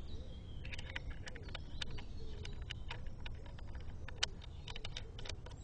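Irregular small metallic clicks and taps, a dozen or more over about five seconds, as the filling adapter is worked out of a BSA precharged air rifle's inlet after filling.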